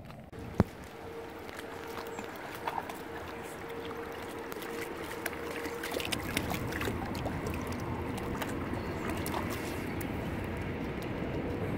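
River water splashing and lapping close by as a dog wades in the shallows at the rocky edge, with scattered small splashes and clicks and a faint steady hum through most of it. A sharp knock about half a second in.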